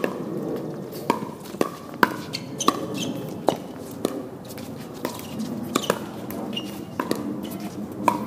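A pickleball rally: the plastic ball popping off paddles and the court, a dozen or so sharp pops at irregular half-second to one-second spacing, each with a brief ring.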